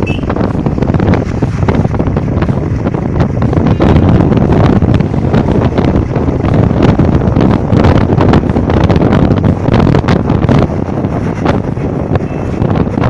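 Heavy wind buffeting the microphone on a moving Royal Enfield Bullet motorcycle, with the bike's single-cylinder engine running underneath.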